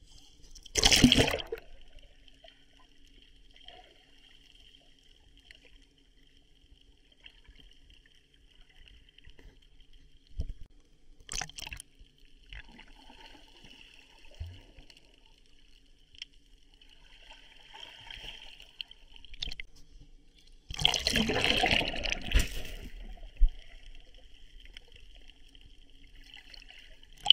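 Water sloshing and trickling, with two louder rushes of splashing, one about a second in and a longer one around twenty-one seconds in. A faint steady high-pitched tone runs underneath.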